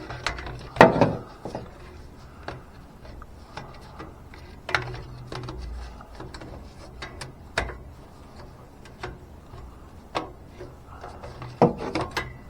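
Scattered clicks, knocks and rubbing from parts and hand tools being handled, with the loudest knocks about a second in and near the end.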